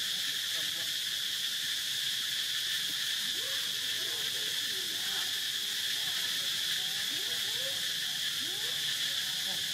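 Steady, high-pitched chorus of insects droning without a break. A few faint, short rising calls sound now and then beneath it.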